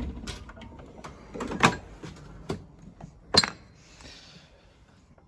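Metal drawers of a Snap-on tool chest being shut and pulled open: a series of sharp metallic knocks and clicks, the loudest about three and a half seconds in, followed by a short sliding hiss of a drawer running on its slides.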